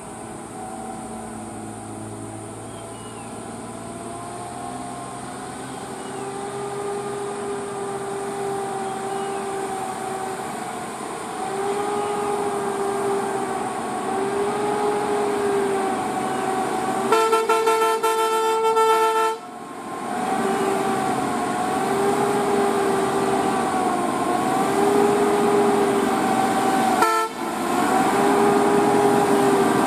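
TATA 16-wheeler lorry's diesel engine running with a wavering whine, growing louder as the lorry approaches. About seventeen seconds in, the horn sounds one steady blast of about two seconds that cuts off abruptly.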